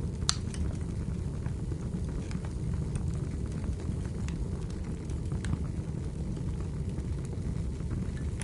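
Wood fire burning in a fireplace: a steady low rumble with scattered sharp crackles, one louder pop just after the start.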